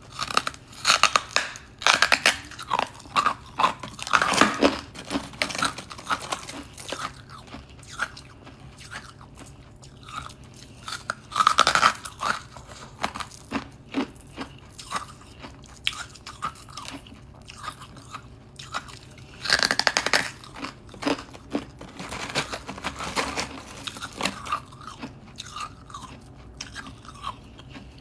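A person biting into and chewing hard, crisp frost close to the microphone. Loud crunching bites come in clusters, with quieter chewing crackle between them.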